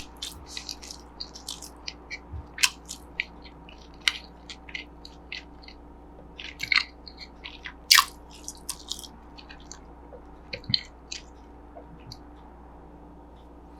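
Crunchy corn puffs (Cheetos) in a hamburger bun being bitten and chewed: irregular sharp crunches and crackles, densest in the first nine seconds, then thinning out.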